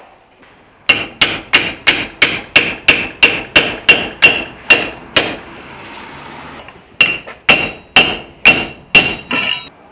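Ball-peen hammer tapping a metal setting tool down over a katana's tang to seat the guard. Each blow rings. A quick run of about fourteen strikes at roughly three a second is followed by a short pause and then six more.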